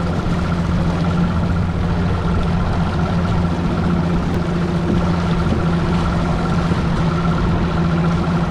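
A motor running steadily at constant speed: a low, even hum with a thin higher whine above it and no change in pitch.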